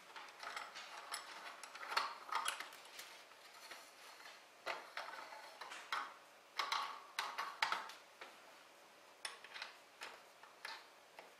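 Irregular light clicks and short clatters of small hard objects being handled, with no steady motor sound.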